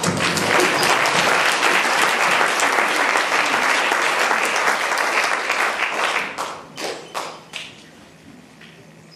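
Audience applauding, dense and steady, then thinning to a few last scattered claps and dying away about seven seconds in.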